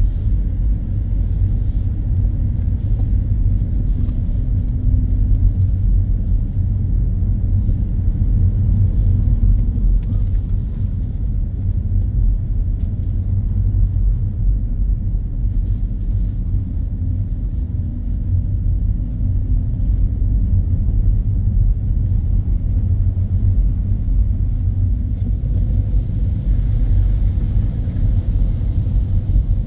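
Car driving on a wet road, heard from inside the cabin as a steady low rumble of engine and tyre noise. About 26 seconds in, a soft hiss joins it as the tyres reach water lying on the road.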